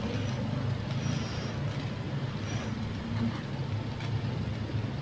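A person blowing on a hot, cheese-covered sausage to cool it, over a steady low background hum.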